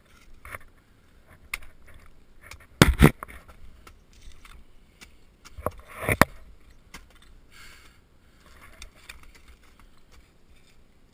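Ice climbing tools striking into frozen waterfall ice: two sharp, hard hits about three seconds in and two more around six seconds in. Smaller clinks and scrapes of metal on ice come between them.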